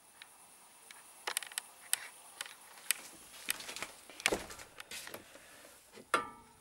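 Irregular light clicks and knocks of handling, as of a hand-held camera being moved and small objects shifted, with one louder knock about four seconds in and a short ringing knock near the end.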